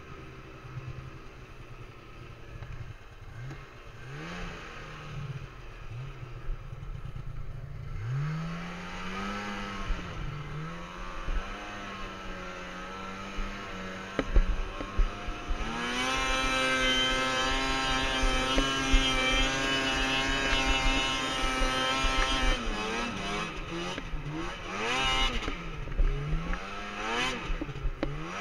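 Snowmobile engine under throttle while riding through deep powder snow: quiet at first, it revs up about eight seconds in and holds high revs from about halfway. Near the end it is throttled off and back on several times, the pitch dipping and rising.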